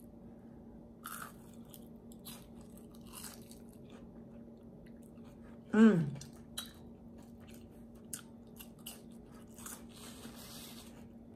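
A person chewing a fried onion ring close to the microphone, with soft, scattered crunches. About six seconds in, a short falling hum from the eater's voice is the loudest sound.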